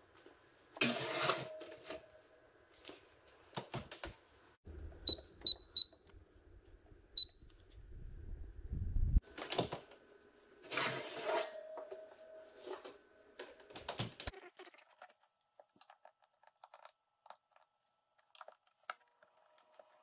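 Metal baking sheet scraping and clanking onto a wire oven rack with a short metallic ring, about a second in and again about eleven seconds in. In between, the electric range's control panel beeps three times in quick succession, then once more a moment later.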